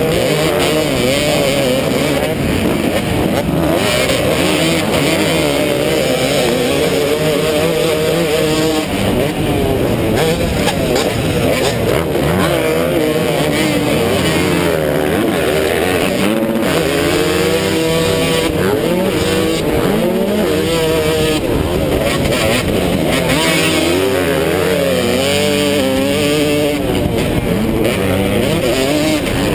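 250-class motocross bike engine revving hard, heard from the rider's helmet camera. Its pitch rises and falls again and again with throttle and gear changes, with other bikes' engines close by.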